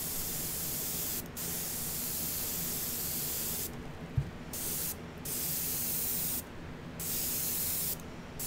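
Badger airbrush spraying thinned chrome silver paint in a series of hissing bursts, each under a second to a couple of seconds long, with short breaks between. A single knock about four seconds in.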